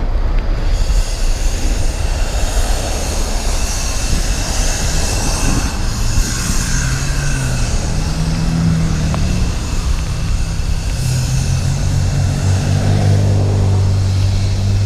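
Road traffic on a wet street heard from a moving bicycle: a steady wash of passing vehicles. A deeper engine hum comes in about six seconds in and grows louder and steadier near the end.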